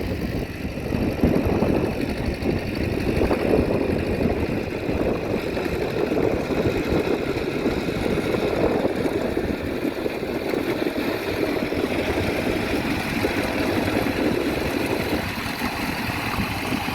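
Kubota DC-70 combine harvester's diesel engine running steadily at an even level.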